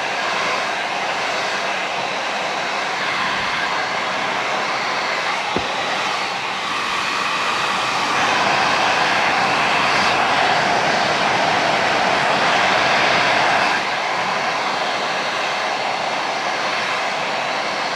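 Handheld blow dryer running steadily with a loud rush of air. There is a single click about a third of the way in. About halfway through the rush grows louder for several seconds, then drops back suddenly.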